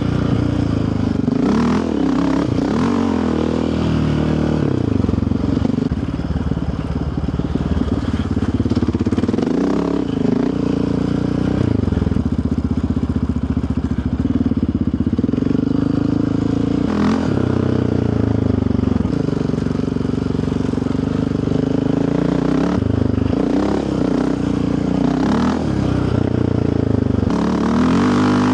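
Yamaha Raptor 700R ATV's single-cylinder four-stroke engine running under a constantly changing throttle, its note rising and falling again and again as it is ridden on a trail, with a few knocks now and then.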